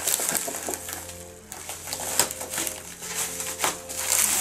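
Postal mailer envelopes crinkling and rustling as they are handled and turned over, with irregular crackles and a few sharper crunches.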